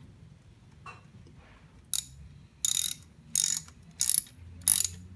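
Ratchet wrench clicking in short rasps, about one every 0.7 seconds from about two seconds in, as the bolts of a motorcycle's oil filter cover are tightened.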